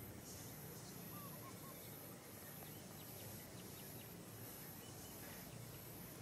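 Faint outdoor field ambience dominated by an insect's high-pitched trill in even pulses, about three pulses every two seconds, with a brief bird chirp about a second in.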